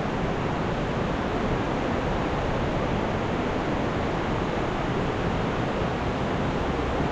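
A river rushing through a rocky gorge: a steady, even roar of water with no breaks.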